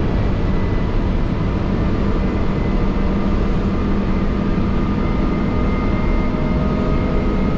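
Resort shuttle bus in motion, heard from inside the cabin: a steady engine and road rumble with a faint whine that rises slightly in pitch near the end.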